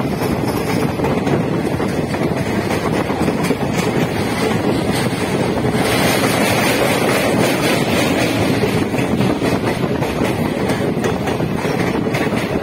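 DEMU train running along the track, heard from on board as a steady rushing noise with wind buffeting the microphone. The rush grows brighter about halfway through.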